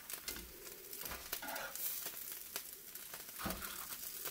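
Gorditas sizzling faintly on a hot griddle, with a few light clicks and knocks as they are handled and set on a plate.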